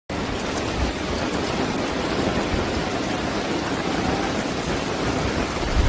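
Loud, steady rush of water, with no pitch or rhythm, that cuts off abruptly at the end.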